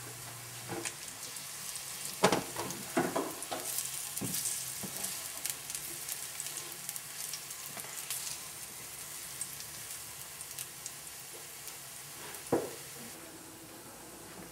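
Sweet potato cutlets sizzling as they pan-fry in a little oil, a steady hiss broken by a few sharp knocks. The hiss thins near the end.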